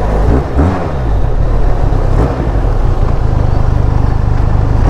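Benelli TRK 502's parallel-twin engine running through its stock exhaust while the bike is ridden: a loud, steady low drone, with a brief dip and rise in pitch about half a second in.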